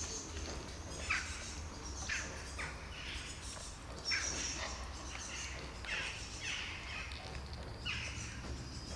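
Birds chirping: short calls that fall in pitch, repeated about once a second, over a steady low background hum.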